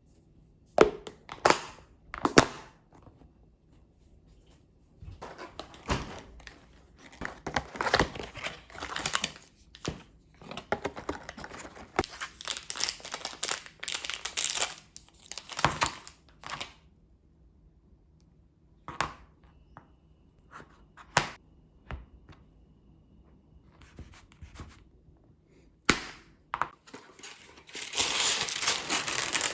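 A plastic protein-bar wrapper being torn open and crinkled, in long crackling stretches. A few sharp knocks come first, and a loud burst of crinkling comes near the end.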